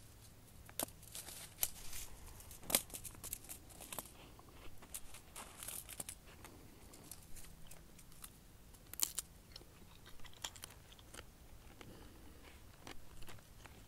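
Dry honey mesquite pods crackling and clicking as they are handled and moved about on a hide mat, in irregular light crunches with a sharper crack about 3 s in and another about 9 s in.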